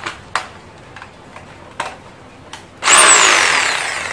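A power drill/driver runs in one short burst about three seconds in, its whine falling in pitch as it spins, after a few sharp clicks of handling.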